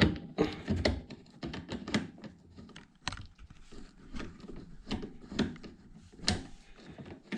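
A hand tool working a 14 mm hex nut on a tumble dryer: irregular light metal clicks and taps, with one sharper knock about six seconds in.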